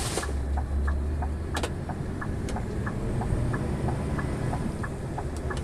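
Vehicle cab noise while driving: a steady low engine and road rumble with a light ticking repeating about three times a second.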